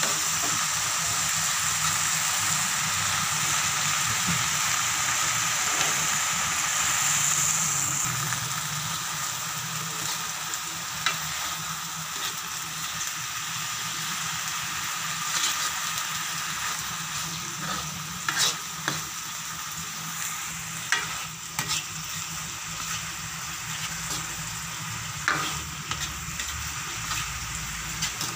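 Water spinach sizzling as it is stir-fried in a steel wok, the hiss easing after about eight seconds. The wooden spatula knocks and scrapes against the wok now and then.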